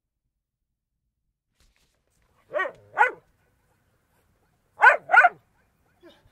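A dog barking: two quick barks about two and a half seconds in, then a louder pair of barks about five seconds in.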